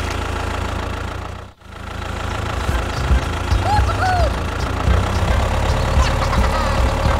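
Tractor engine running with a steady low drone. It cuts out for a moment about one and a half seconds in, and a second engine sound comes back in, chugging low and unevenly and louder.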